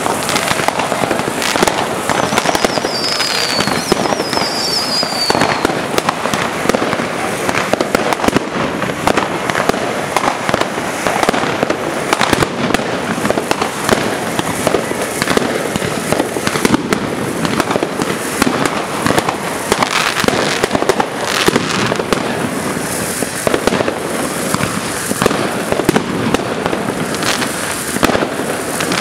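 Fireworks going off without pause: dense crackling and sharp bangs from aerial bursts and firecrackers, with two short falling whistles a few seconds in.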